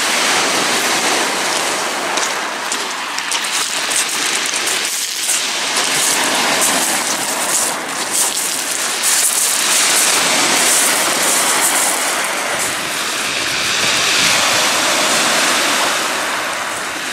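Surf breaking and washing up a shingle beach: a loud, continuous hiss of water over pebbles that swells and eases as the waves come in.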